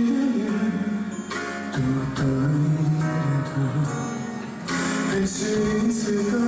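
Live pop ballad: a man singing with a band, guitar strumming underneath.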